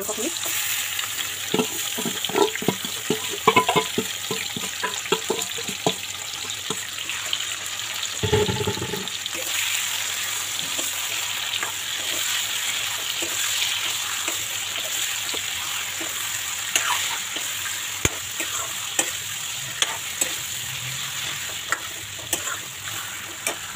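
Marinated chicken pieces sizzling and frying in hot mustard oil in a steel wok, stirred with a steel ladle that clinks and scrapes against the bowl and pan, most often in the first few seconds. A short dull thump about eight seconds in, after which the sizzling swells.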